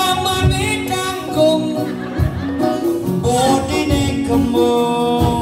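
Live band music with a singer holding long notes over a recurring low drum beat.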